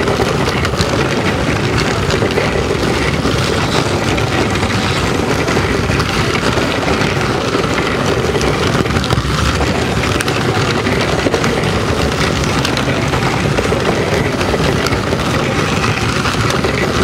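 Several battery-powered Tonka Climb-Overs toy trucks running on a plastic track: small electric motors whirring steadily, with plastic wheels clattering as the trucks climb over the track's obstacles.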